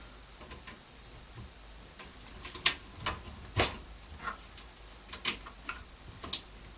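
Scattered light clicks and taps of a bracket and screw being handled and fitted into a PC case, irregularly spaced, the sharpest a little under three seconds in and again about a second later.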